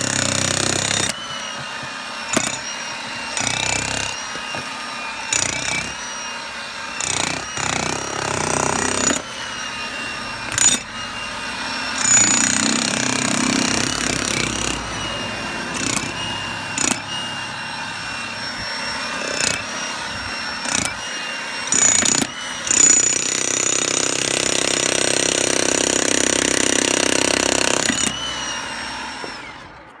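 Hilti TE 1000-AVR electric demolition breaker hammering its chisel into stony ground and rock, with a high whine over the rapid blows. It runs in long stretches broken by a few brief pauses, then winds down near the end.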